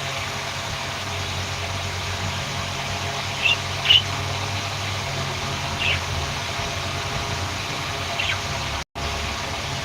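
A few short, high budgerigar chirps, four in all, over a steady low mechanical hum. The sound cuts out for a moment near the end.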